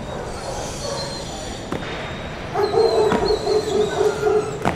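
A dog barking in a quick run of short barks, starting about halfway through.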